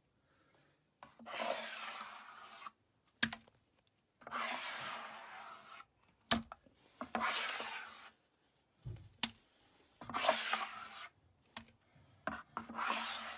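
Slime being squished and stretched by hand: five rasping, crackly passes about one to one and a half seconds each, with sharp pops between them.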